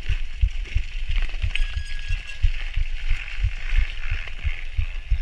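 Bicycle riding over packed snow and slush: steady tyre noise with low thumps two or three times a second as the bike jolts over the rough surface.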